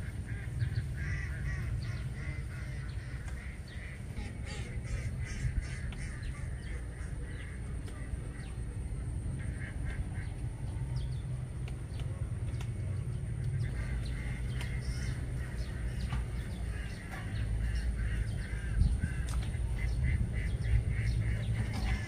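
A large flock of domestic ducks quacking at a distance, in short runs of calls that come and go, over a steady low rumble.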